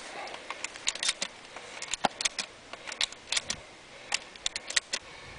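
Pump-action shotgun being reloaded: a run of irregular, sharp metallic clicks as shells are pushed into the tube magazine.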